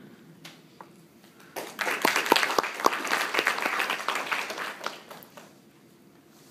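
Audience applauding: a burst of clapping that starts about a second and a half in and dies away after about four seconds.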